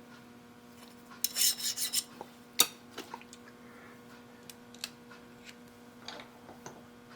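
A hand file deburring a freshly machined edge, with a quick run of rasping strokes about a second in, followed by sharp metal clicks and light taps from handling the part and tools. A steady low hum runs underneath.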